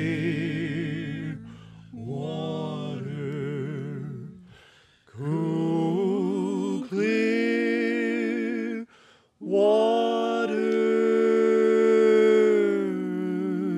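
Men singing a slow cowboy ballad in close harmony, holding long notes with vibrato over little instrumental backing. The voices sing in phrases with short breaks, then hold one long chord for several seconds near the end.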